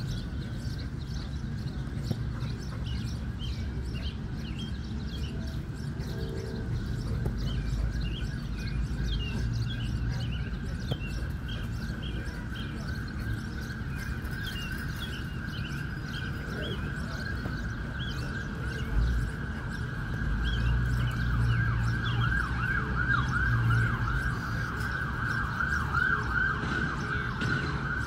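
A siren holding a long steady wail that breaks into a fast up-and-down yelp of about four sweeps a second near the end. Birds chirp over it, and a low rumble runs underneath.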